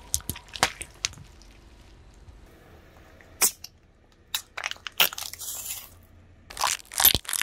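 Objects cracking and crunching under a car tyre as it rolls over them: a series of sharp cracks, with a brief hissing rush about five seconds in.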